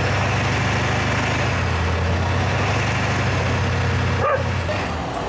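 Flatbed tow truck's engine running at a steady idle with a constant low hum while it powers the tilted bed to load a pickup. The hum briefly drops out a little over four seconds in, with a short squeak.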